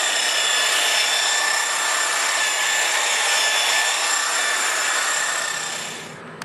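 Electric polishing buffer running steadily on painted motorcycle bodywork, with a steady high motor whine over the pad's rubbing noise, stopping near the end.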